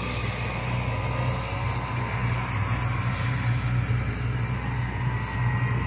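Small boat's outboard motor running steadily under way, a low drone under a constant hiss of wind and water.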